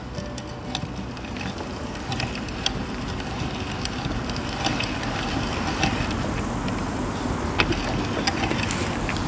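Hand-cranked metal spice mill turning and grinding spice: a steady rough grinding noise with scattered sharp clicks.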